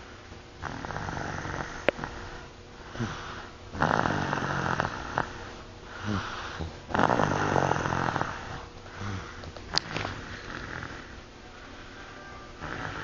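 A young child snoring in her sleep, with a loud snore about every three seconds, the strongest about four and seven seconds in, and quieter breathing between. Two short clicks near the start and the end.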